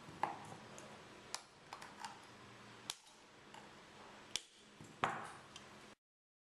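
Wire cutters snipping the excess leads off a soldered resistor on a circuit board: about half a dozen sharp snips, some with a brief metallic ring. The audio cuts out abruptly near the end.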